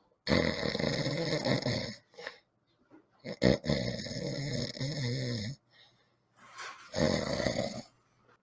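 A man snoring: three long snores with short pauses between them, the last one shorter.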